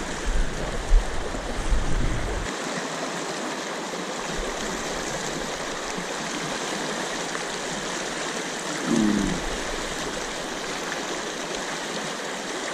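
Fast river current rushing over rocks in shallow rapids, a steady wash of water. A few low thumps in the first two seconds.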